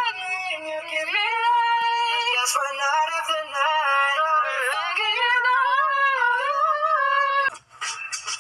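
A man singing a high melody in a car cabin, holding long wavering notes and sliding between them. About seven and a half seconds in it cuts off, and energetic hip-hop music starts.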